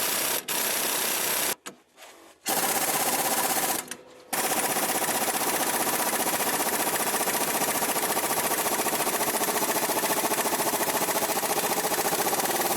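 Pneumatic wrench running on a bolt in short trigger pulls: a loud, fast rattling that cuts in and out twice, then runs for about eight seconds.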